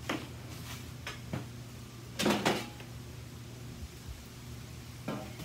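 Air fryer basket drawer being pulled out of its housing: a plastic scrape a little over two seconds in, with a few light clicks and knocks of handling around it.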